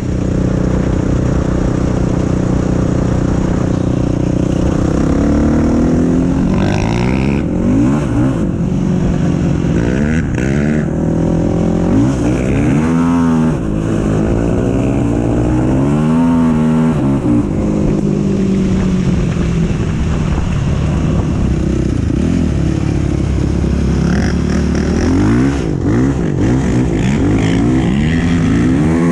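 Yamaha YFZ450 quad's single-cylinder four-stroke engine, heard on board. It runs at a steady pitch for the first few seconds, then revs up and down again and again under hard riding.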